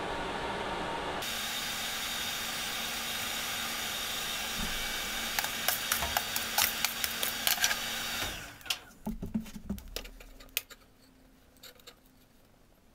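Coal forge blower running with a steady rush of air while lumps of coal clink and clatter as they are raked over the hot steel. About eight seconds in the blower cuts off, a few more clinks of coal follow, and then it goes quiet.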